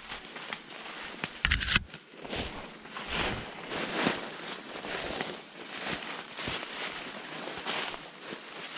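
Footsteps and rustling through undergrowth and leaf litter in irregular strokes, with one louder, brief crackling burst about a second and a half in.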